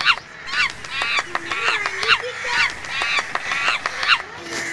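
A crow cawing repeatedly, about two caws a second, in a steady run that stops shortly before the end.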